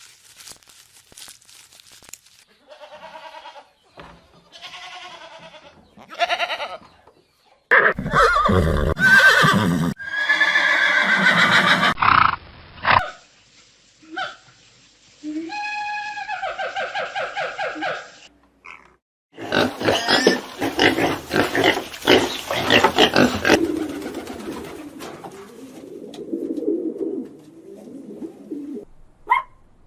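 A string of different animal calls and cries from several short clips, changing abruptly from one to the next, including a run of quick repeated pitched calls in the middle.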